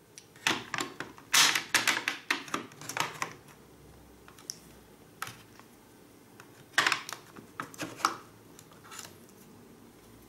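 Rechargeable AA batteries being pushed into the spring-loaded contact slots of a universal battery charger: a series of plastic and metal clicks and clacks, in a busy cluster about a second in and another near seven seconds, with a few single clicks between.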